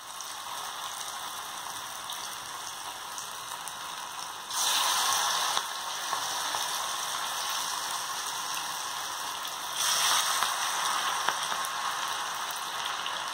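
Poha pakodas deep-frying in hot oil in an iron kadai: a steady crackling sizzle of bubbling oil that swells louder twice, about a third of the way in and again near three-quarters.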